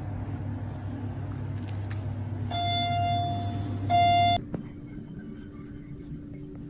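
Two electronic beeps, a long one about two and a half seconds in and a shorter, louder one right after, over a steady low hum that stops with a click just after the second beep; a fainter, higher hum carries on.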